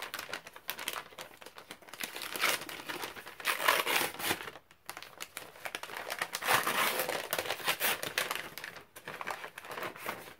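Gift-wrapping paper rustling and crinkling as a wrapped package is opened by hand, in irregular bursts with brief pauses between them.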